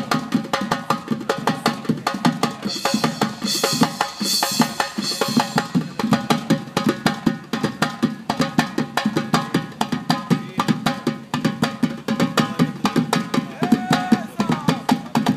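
Live drumming in a fast, dense, steady rhythm, with a cymbal ringing out about three to five seconds in.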